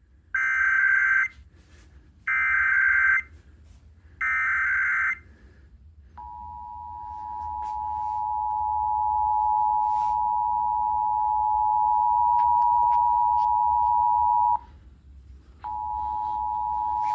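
Emergency Alert System test alert played from a radio: three short bursts of SAME header data, a digital screech each about a second long, then from about six seconds in the steady two-tone EAS attention signal. The attention tone cuts off near the fifteen-second mark and starts again about a second later.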